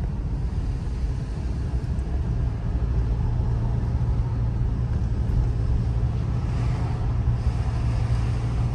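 Inside a moving car's cabin: the steady low rumble of the car driving along the road, with a low hum that grows stronger about two seconds in.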